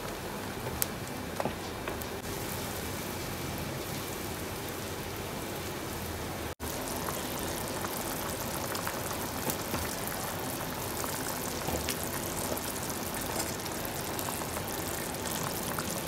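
Tamarind chutney with jaggery and sugar bubbling hard in a pan: a steady crackling, bubbling hiss as it is stirred and cooked down to thicken. The sound drops out for an instant about six and a half seconds in.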